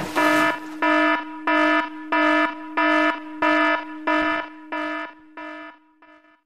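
Electronic alarm sound effect: a buzzy beeping tone repeating about every 0.7 s over a steady lower tone, fading out over the last couple of seconds. There is a short rush of noise at the very start.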